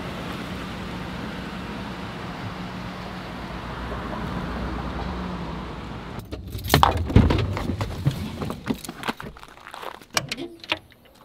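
Ford F-150 pickup rolling slowly past with its engine running, a steady low hum that swells a little about four seconds in. About six seconds in it gives way abruptly to footsteps in flip-flops on gravel, a loud irregular run of sharp crunches and clicks.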